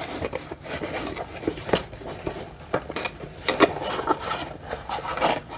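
A subscription box being opened and its packaging handled: rubbing and rustling with many light knocks and clicks.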